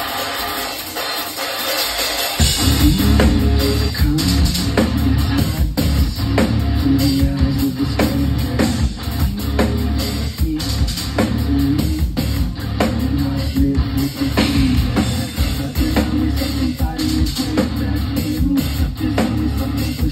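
Rock music with a drum kit played hard and electric guitar. A heavy bass and kick-drum low end comes in about two and a half seconds in.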